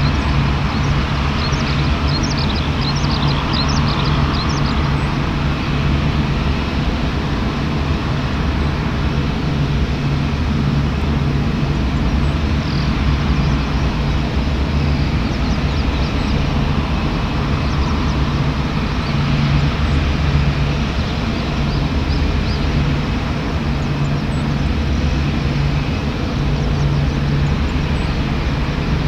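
Boeing 787-8's Rolls-Royce Trent 1000 turbofan engines running steadily at low taxi power as the airliner taxis, a continuous jet engine hum and hiss.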